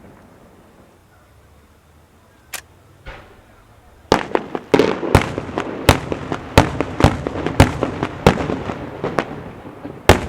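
Festa fireworks going off: two single sharp bangs about two and a half and three seconds in, then from about four seconds a rapid string of loud bangs, two or three a second.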